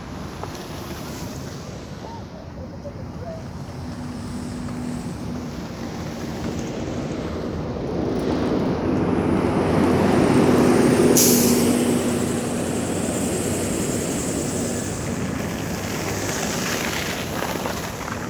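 A heavy vehicle drives past on a snowy street. Its engine and tyre noise build to a peak about ten seconds in and then fade, with a short high hiss near the loudest point.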